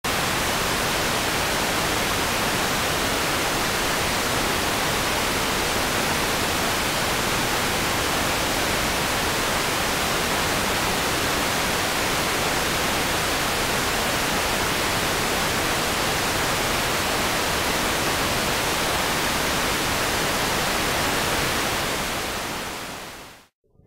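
Television static: a steady, even hiss that fades out shortly before the end.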